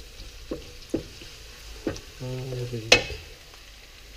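Sliced onion and garlic sizzling in oil in a wok while a wooden spatula stirs them, knocking against the wok several times, the loudest knock about three seconds in.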